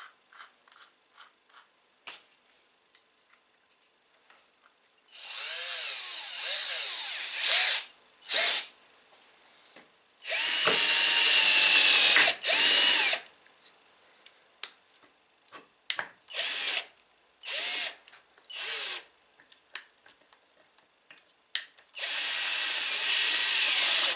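Cordless drill with a keyless chuck: a few small ratchet clicks of the chuck being hand-tightened at the start, then the motor driving a bit into a wooden block in repeated runs. The speed shifts as the trigger is squeezed. The longest and loudest run is about halfway through, followed by several short bursts and a last run near the end.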